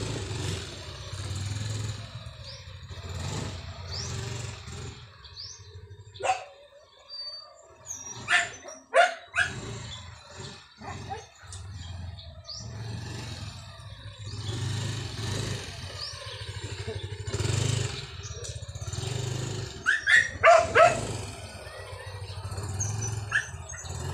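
Motor scooter engine running at low speed, rising and falling. A dog barks sharply a few times, with a quick run of three barks, the loudest sounds, near the end.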